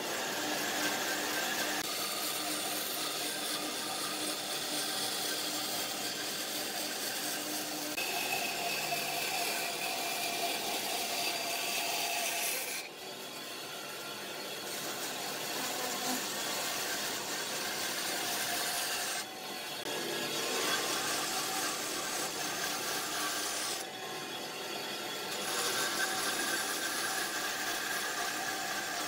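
A power tool working wood: a steady motor whine over a continuous rasping hiss. The sound changes suddenly about 13, 19 and 24 seconds in.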